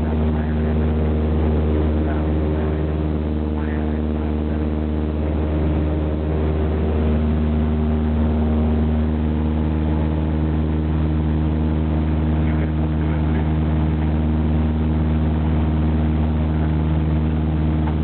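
Cessna 172's single piston engine and propeller running steadily in flight, heard inside the cabin: a constant low hum made of several steady tones, with no change in pitch.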